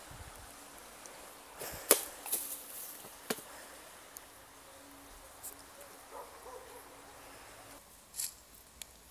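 Cardboard phone box being handled and opened: a few sharp knocks and clicks, the loudest about two seconds in, with two more near the end.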